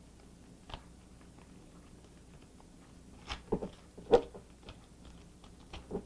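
Crumpled aluminium foil crinkling as hands press and shape it, a handful of short crackles, loudest about three and four seconds in.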